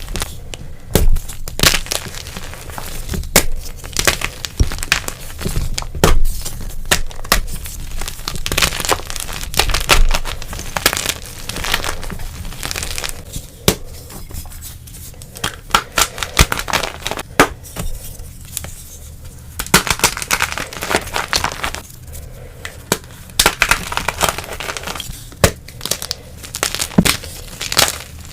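Blocks of dyed gym chalk being crushed and crumbled, with irregular sharp crunches and crackles coming in clusters.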